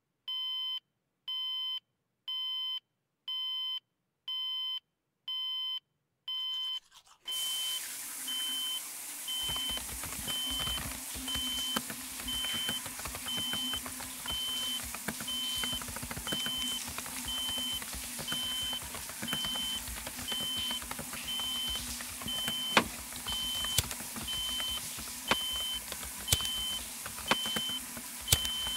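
Electronic beeping. First come seven evenly spaced beeps, about one a second, over silence. After about seven seconds a shorter, higher beep repeats about one and a half times a second over a steady low rumble and hiss, with occasional sharp clicks.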